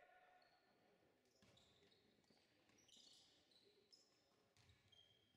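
Faint basketball game sounds: sneakers squeaking in short high chirps on the gym floor and a basketball bouncing with dull thumps.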